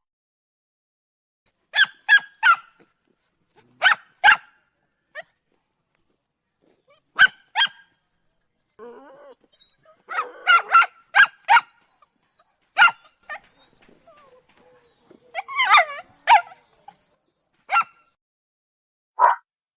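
Puppies barking in short, high-pitched yips, in quick bursts of two to four separated by silent gaps. A quieter, lower whimper comes about nine seconds in.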